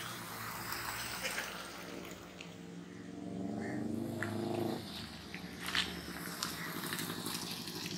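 Yamaha R25's parallel-twin engine accelerating, its pitch climbing. The pitch drops off suddenly about five seconds in, and the engine note picks up again near the end.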